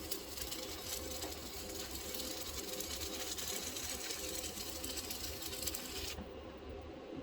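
Electric arc welding on a water heater: a dense, steady crackle from the arc that cuts off suddenly about six seconds in, over a low electrical hum.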